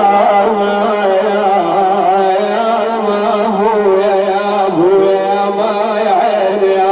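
A man chanting a mourning lament (nai) in long, wavering melismatic notes over a steady low drone.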